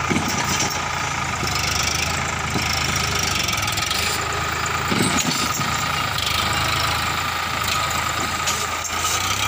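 Sonalika tractor's diesel engine running steadily under load as the tractor, stuck in mud with a rotavator behind it, strains to pull free. There is a dull knock about halfway through.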